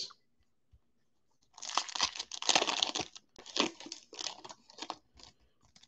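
Foil wrapper of a Panini Absolute Football trading-card pack crinkling and tearing as it is handled and opened, in a run of irregular crackly rustles starting about a second and a half in.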